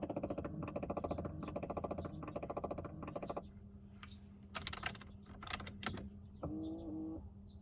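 Rapid, even clicking rattle, the extraneous noise a Mercedes-Benz W211 is making, over a low steady hum. The fast clicking stops after about three and a half seconds, then scattered sharp clicks follow, with a brief pitched whine near the end.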